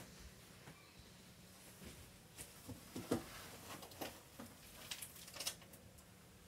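Scattered soft knocks and rustles of bedding being scooped out of a pet cage with a small pot, the sharpest knock about three seconds in and a few more around five seconds in.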